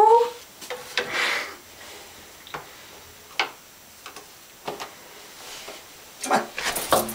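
Scattered light taps and knocks, roughly a second apart, from a wooden stick prodding along the inside of a bathtub, with a short rustle about a second in and louder rustling near the end.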